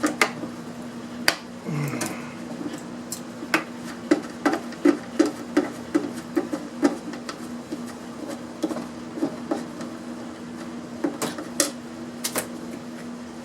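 Irregular clicks and knocks of small metal and plastic parts and hand tools being handled while an electronic speaker is taken apart for scrap, with a cluster of quick knocks a few seconds in and another near the end. A steady low hum runs underneath.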